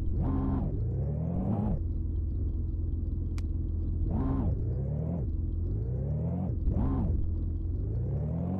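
A steady engine drone with repeated revs. Its pitch swells up and drops back quickly several times, with slower rising climbs in between.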